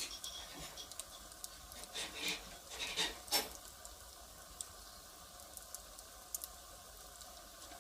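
Firewood fire crackling: sharp pops and snaps of burning wood over a faint hiss, with a cluster of louder pops in the first half and only occasional snaps after.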